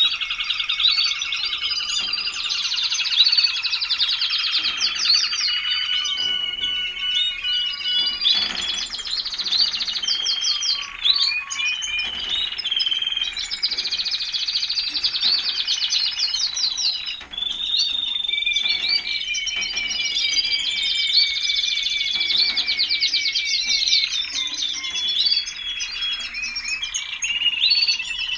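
Timbrado español canaries singing in a dense, overlapping chorus of rapid trills and rolls mixed with longer held notes, carrying on without a break.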